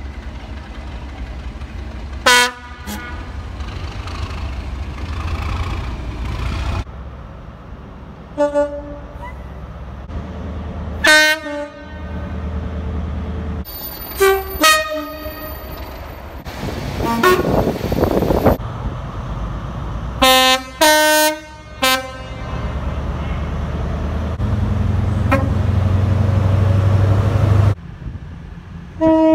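Train horns sounding as several different trains pass, about eight short blasts in all, some two-tone. The trains' engines rumble steadily between the blasts and grow loud near the end.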